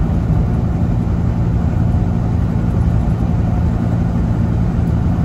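Semi truck's diesel engine and road noise heard from inside the cab while cruising on the highway: a steady low drone, with tyre noise from the wet pavement.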